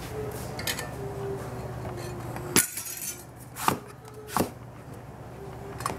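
Chef's knife chopping eggplant on a plastic cutting board: a few separate sharp knocks of the blade striking the board, about a second apart, starting a little before halfway.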